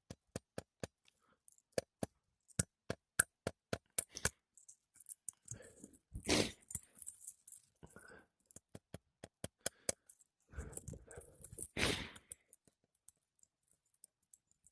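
Hand tools working on old, brittle 3-tab asphalt shingles: a quick run of sharp taps, about four a second, for the first four seconds, then two louder scraping sounds about six and twelve seconds in.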